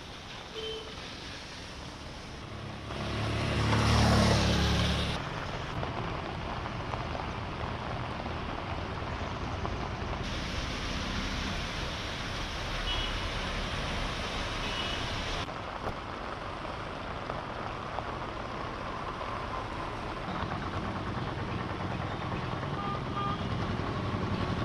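Street sound of road vehicles moving through flooded roads under a steady rush of noise, changing abruptly several times. One vehicle passes loudly about four seconds in, its pitch falling.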